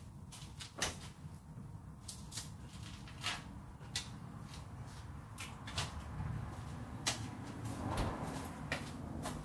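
Scattered clicks, knocks and clinks as a refrigerator is opened and beer bottles are taken out and carried, with a noisier shuffle of handling near the end.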